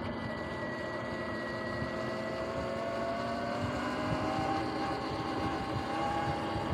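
Sur-Ron X electric dirt bike riding along, its motor and chain drive whining, with the pitch climbing about four seconds in, over steady road and wind noise. It is running on a freshly replaced chain and sprockets.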